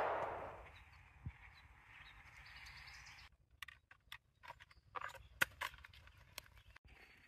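The echo of a gunshot dies away over the first second. Then there is faint outdoor quiet with scattered light crunches and clicks between about three and six and a half seconds in: footsteps on dry field stubble.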